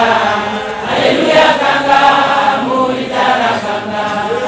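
Church congregation singing a hymn together, many voices in phrases.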